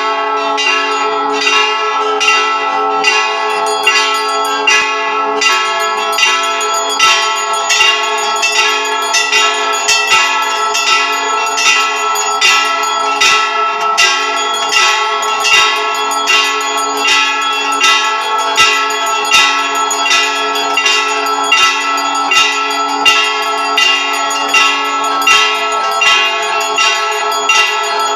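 Temple bells rung continuously in a steady rhythm during an aarti, about two strikes a second, their tones ringing on and overlapping into a constant metallic clang.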